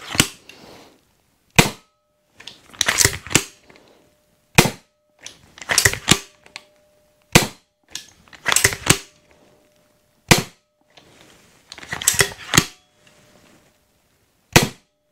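All-metal Steambow Stinger II pistol crossbow shooting a round: five sharp shots about three seconds apart, with the clatter of the pump-action cocking between each shot. The aluminium body and magazine give each shot a metallic ringing.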